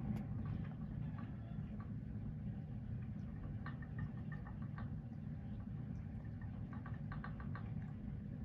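Tabby cat chewing and crunching dry kibble from a metal bowl: scattered small crunches and clicks, with quick runs of them about four and seven seconds in, over a steady low hum.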